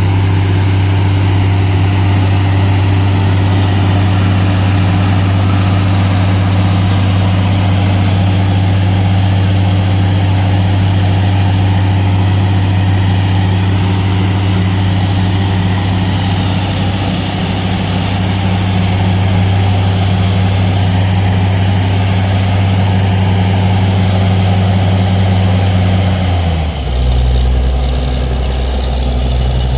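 Borewell drilling rig's diesel engine running loud and steady, then dropping to a lower speed about 26 seconds in.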